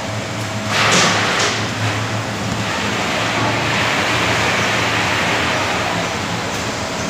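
Snack frying and seasoning line running: a steady motor hum under a rain-like hiss. Two short, louder rushes come about a second in, and the hiss swells a few seconds in.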